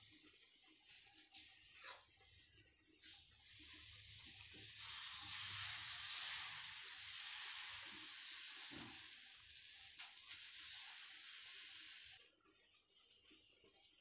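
Dosa batter sizzling on a hot tava as it is poured and spread out in circles with a ladle. The hiss grows louder a few seconds in and cuts off suddenly near the end.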